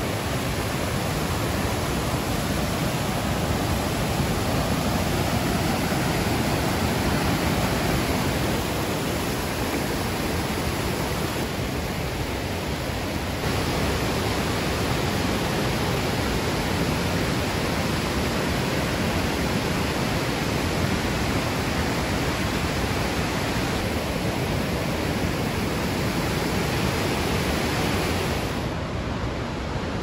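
Steady rush of water pouring over the Krka River's waterfalls and cascades, an even hiss with no breaks. The highest part of the hiss drops away near the end.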